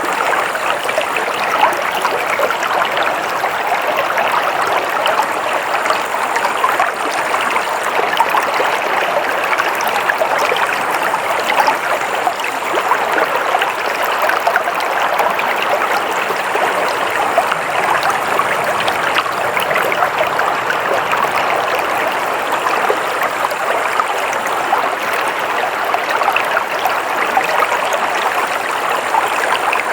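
Water flowing steadily in a stream, an even rushing and babbling with no pauses.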